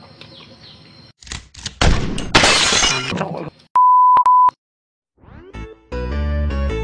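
Edited intro sound effects: about two seconds of loud crashing noise, then a steady 1 kHz test-card beep with a short break near its end. After half a second of silence, an intro jingle starts with rising swoops and keyboard music.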